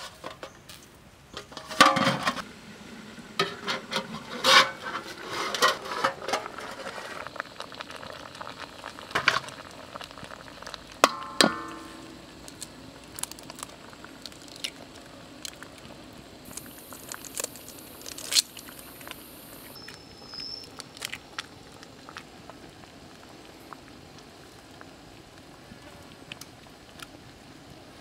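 Steel wok and its metal lid knocking and clinking, with one ringing clank near the middle. After that come lighter clicks and taps over a steady low hiss of the steaming pan over a wood fire.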